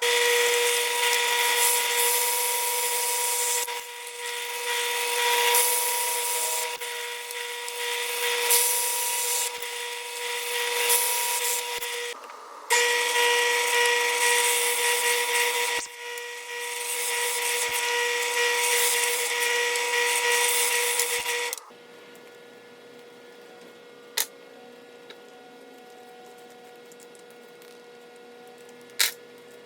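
Electric power tool running with a steady motor whine over loud cutting noise, working wood. It runs in two long stretches with a brief break about twelve seconds in and stops about 21 seconds in. Two sharp clicks follow in the quiet.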